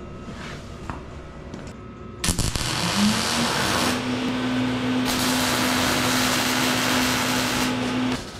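Electric angle grinder starting up about two seconds in, its motor whine rising and then holding steady while it grinds metal with a loud hissing rasp, then cutting off near the end.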